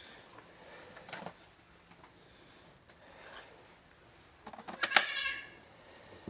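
A short, high-pitched animal cry about five seconds in, just after a few light knocks.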